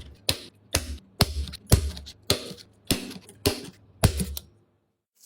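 Sharp knocks repeating at an even pace, about two a second, each with a short low thud, stopping about four and a half seconds in.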